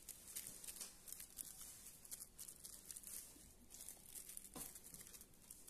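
Faint, irregular rustling and soft dabbing: a silicone pastry brush spreading melted margarine over steamed purple sticky rice on banana leaves.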